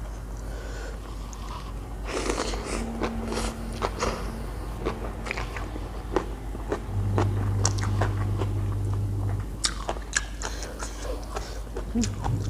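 Close-miked chewing and biting of spicy Thai pounded salad with pickled shrimp and pickled crab, with many sharp, crunchy clicks and wet mouth sounds.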